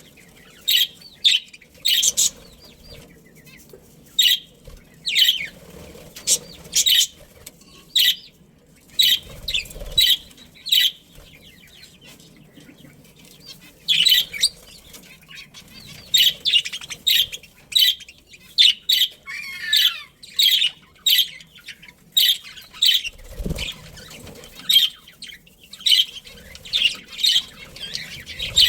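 Budgerigars chirping: many short, sharp chirps in irregular runs, with one falling call about twenty seconds in.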